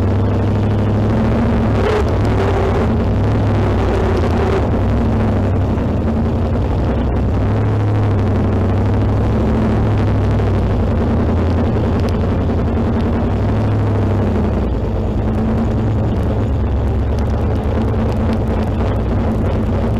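1972 Shadow MkIII Can-Am car's V8 running steadily at low revs as the car creeps along at walking pace, heard loud from the open cockpit, with a little wind on the microphone.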